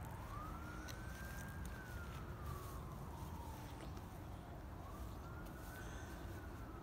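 Faint emergency-vehicle siren wailing, its pitch rising and falling slowly twice, over a steady low rumble.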